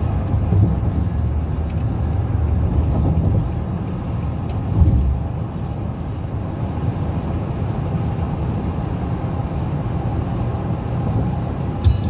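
Road noise inside a moving car's cabin at highway speed: a steady low hum of tyres and engine.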